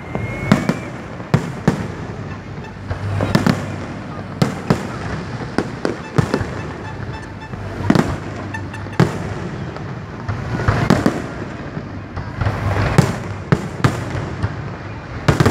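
Fireworks display: loud bangs of shells bursting at irregular intervals, roughly one every second or so, with denser runs of crackling several times.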